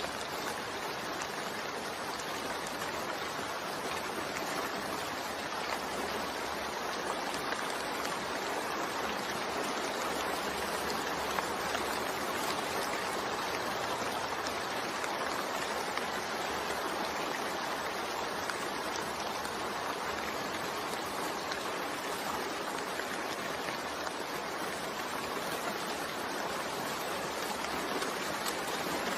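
Continuous rain blended with white noise: an even, steady hiss with no breaks or separate drops standing out.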